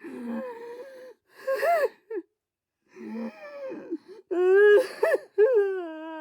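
A person crying dramatically: a string of wailing sobs with quavering pitch, broken by short gasping breaths and brief silences. The loudest wail comes about two thirds of the way through.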